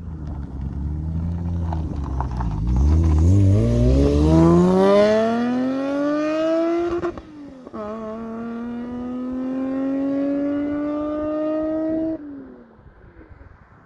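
VW T2 bus with a Subaru EZ30R 3.0-litre flat-six on an open exhaust, accelerating hard away. The revs climb steeply, dip at a gear change about seven seconds in, then climb again more slowly. About twelve seconds in the throttle closes and the note falls away into the distance.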